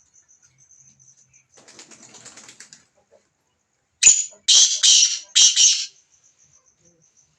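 A bird flapping its wings: soft rustling, then a run of four loud flapping bursts about four seconds in.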